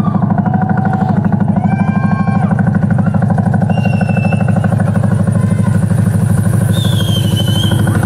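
Soundtrack of a dance routine played loud over a TV studio's sound system: a heavy steady low drone with a fast even pulse, and short gliding tones above it now and then.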